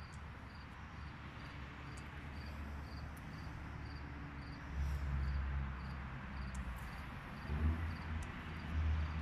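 A cricket chirping steadily, about two to three short chirps a second, over a low rumble that swells a few times, around five and eight seconds in.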